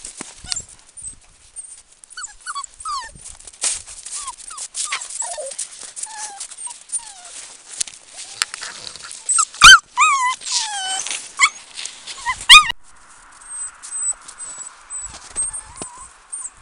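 Samoyed puppies whimpering and yipping in short, falling whines, with the loudest yelps about ten and twelve and a half seconds in. Frequent rustles and knocks come from fur brushing close to the microphone. The calls stop about thirteen seconds in, leaving a faint steady hiss.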